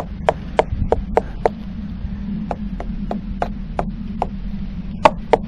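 Hardwood tool handle tapping repeatedly on a wooden boat's hull planking, about three sharp knocks a second with a couple of short pauses, over a steady low hum. This is sounding the hull for hidden rot: sound timber rings, soft rotten wood sounds dull.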